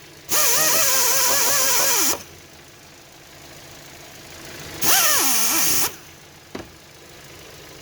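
Power sanding tool running in two bursts, its pitch wavering as it is pressed on, cleaning a ground connection's contact so it conducts well. A short click follows near the end.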